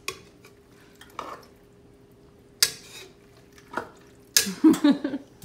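Metal spoon stirring pasta, meat and sauce in a large stainless steel stockpot, with scattered sharp clinks and scrapes of the spoon against the pot's wall, and a louder, busier stretch near the end.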